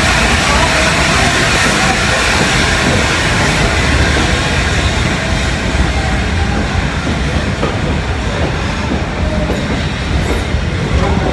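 LNER A4 Pacific steam locomotive and its train rolling into a station. A loud, steady hiss runs over the rumble of the train, and its highest part dies away in the second half.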